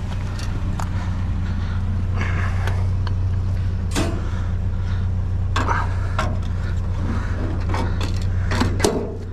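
Junk clattering and scraping as it is rummaged through in a dumpster, in scattered sharp knocks and short rattles, over a steady low hum like an idling vehicle engine.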